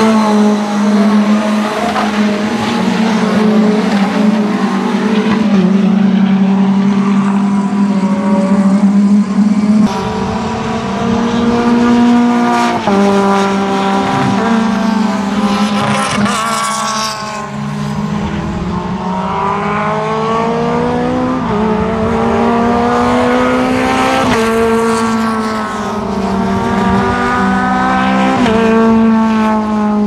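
Mitjet race cars' Renault 2.0-litre four-cylinder engines at racing speed, over a steady engine drone, revving up with a climbing pitch that drops back at each upshift, several times over.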